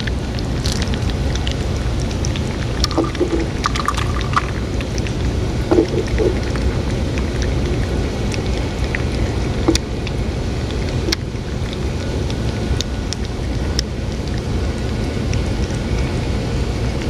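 Two cats lapping and chewing a liquid cat treat from a metal bowl, wet licking clicks scattered irregularly over a steady low rumble.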